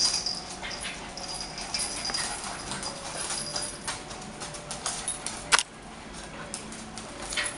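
Small dogs play-fighting, with a high thin whine at the start and again from about one to three seconds in, scattered clicks and scuffles, and one sharp knock about five and a half seconds in.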